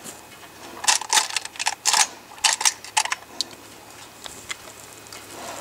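Boots crunching and scuffing on dry pine needles and gravel: a quick run of sharp crunches and clicks for about two seconds, starting about a second in, then a few faint ticks.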